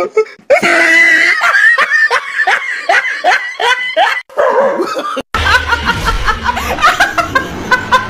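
A person laughing hard in quick repeated bursts. About five seconds in, the sound cuts to another clip where the laughter goes on over a low rumbling noise.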